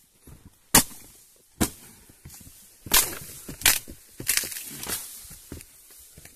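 Dry reeds and wooden poles snapping and rustling as a reed-and-pole hut is pulled apart by hand: about six sharp cracks with crackling between them.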